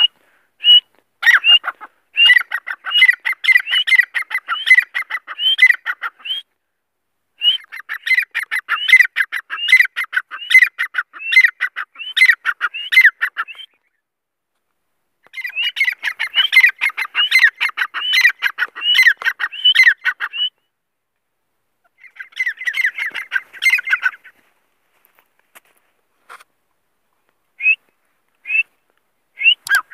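Grey francolin calling in four long bouts of rapid, repeated shrill notes with short pauses between them, then a few single notes near the end.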